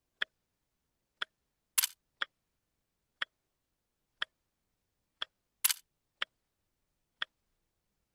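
Clock ticking steadily, one tick a second, with two louder, sharper clicks about two seconds in and again a little before six seconds.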